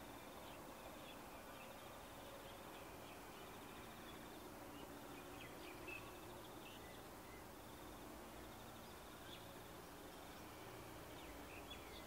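Faint outdoor ambience: rhythmic insect chirping and a few bird chirps, over a low steady hum from a distant approaching diesel-hauled train.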